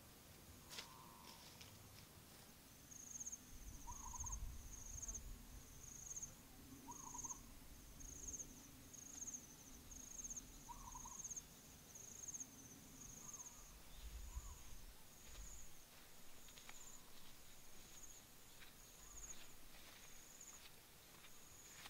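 Faint forest ambience with birds calling: short hooting calls every few seconds, and a high chirp repeating about once a second through most of the stretch.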